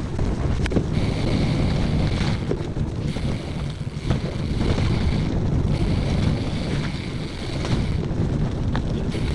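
Wind buffeting the microphone of a camera on a cyclocross bike riding a gravel trail, over tyre rumble, with a few sharp knocks from the bike on bumps.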